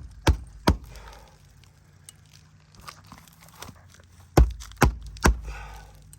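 Hammer blows nailing down an asphalt roof shingle: two quick strikes near the start, then three more in a row about four and a half seconds in, with light crinkling of the shingle between them.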